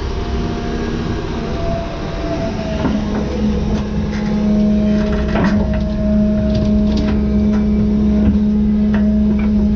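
John Deere 210G excavator running under load, its engine and hydraulics giving a steady hum that strengthens as the loaded bucket lifts and swings. In the second half, dirt and rocks tip into the dump truck bed with scattered knocks and clatter.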